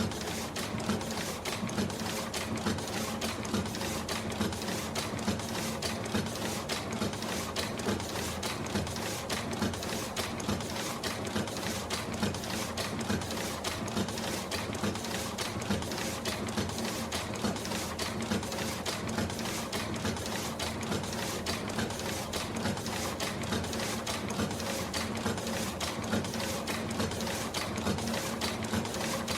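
Industrial printer running continuously: a rapid, even rattle of clicks over a steady mechanical hum.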